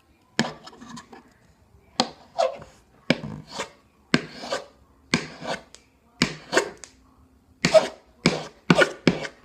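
Push-button automatic folding knife worked over and over: the blade springs out and is snapped shut again, giving pairs of sharp metallic clicks about once a second.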